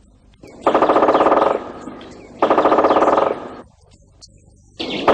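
A rapid pulsing rattle in bursts: two of about a second each, and a third starting near the end.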